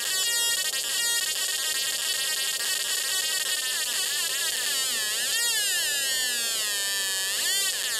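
Atari Punk Console, a 556 timer sound circuit, buzzing through its speaker with a harsh square-wave tone. The pitch holds steady at first, then from about halfway through sweeps up and down, dipping low twice.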